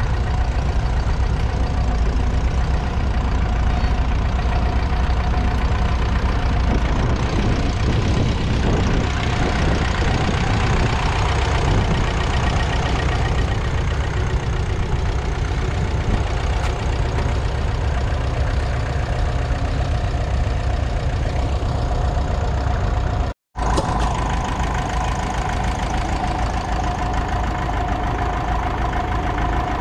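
Ferguson TEF20's 2.1-litre four-cylinder diesel engine running steadily, pulling a mounted two-furrow plough. The sound breaks off for a split second about two-thirds of the way through and then carries on.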